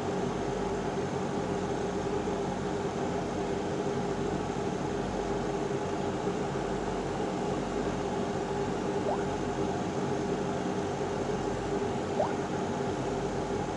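Steady whirring hum with hiss. Twice in the second half comes a brief, faint rising chirp.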